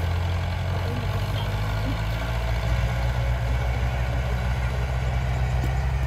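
Diesel engines of a small bulldozer and loaded dump trucks running with a steady low drone, its pitch shifting slightly about two seconds in.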